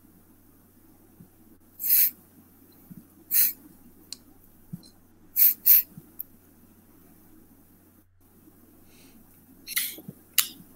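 Steady low hum with several short hissing bursts spread through, the loudest near two, three and a half and five and a half seconds in.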